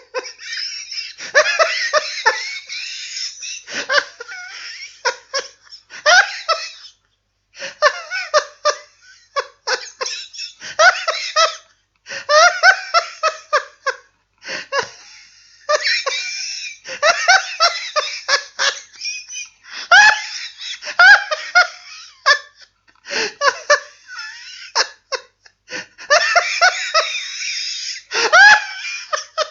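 People laughing: a run of separate laugh recordings played one after another, each cut off by a short silence before the next begins.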